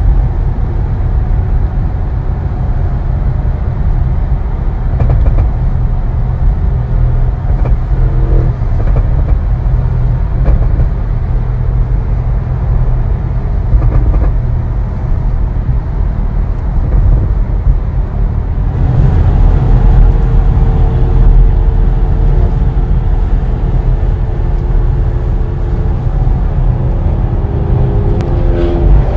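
Steady low rumble of road and engine noise inside a car cruising at motorway speed. About two-thirds of the way through it grows a little louder and a steady hum joins in.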